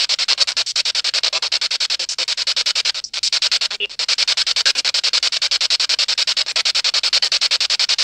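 Radio static chopped into rapid even pulses, about a dozen a second, from a ghost-hunting spirit box sweeping through stations. It cuts out for a moment about three seconds in.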